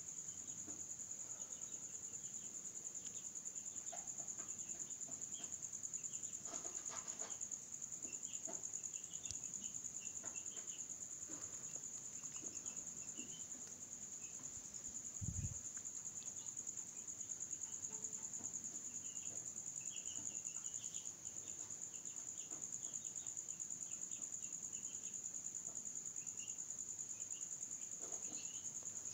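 Insects trilling steadily in one high, continuous note, with faint short chirps scattered over it. A single low thump about fifteen seconds in.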